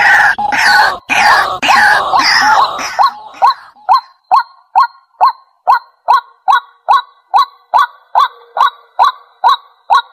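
White-breasted waterhen calling. For about the first three seconds there is a loud, dense run of overlapping harsh calls. Then it settles into a steady series of single short notes, two or three a second: the bird's territorial call.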